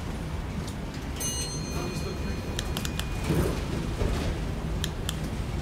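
Inside a moving single-deck bus: a steady low engine and road rumble, with rattles and clicks from the fittings. About a second in comes one short, high electronic chime.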